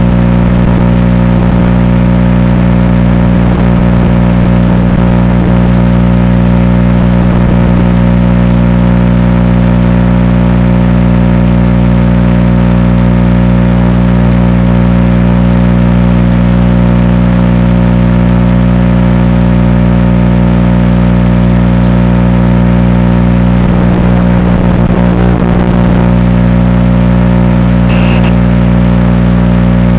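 Loud, steady electronic buzz on the FPV video feed's audio channel, heard as many fixed tones stacked together. It comes from the video transmitter sending mono audio to a FatShark receiver module that expects stereo.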